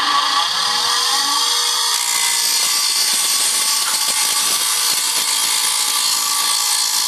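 Motor-driven abrasive grinding wheel of a saw-sharpening machine spinning while a diamond tile-cutting disc is held against it: a steady grinding hiss over the motor's hum. The wheel is being trued to even out high spots so it spins level.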